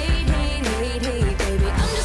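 Pop music with a steady drum beat and a gliding melody line.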